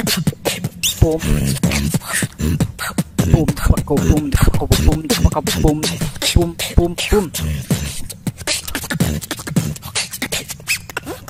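Human beatboxing: a boy's fast mouth percussion of drum-like hits and clicks, with short sliding vocal tones woven through.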